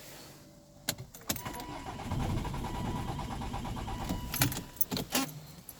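Volvo V50 2.0D diesel being cranked without catching: two clicks as the key turns, then a steady mechanical whirr with a rapid pulse for about two and a half seconds that stops without the engine running, the sign of the car's no-start fault. Several sharp clicks and a keys jangle follow near the end.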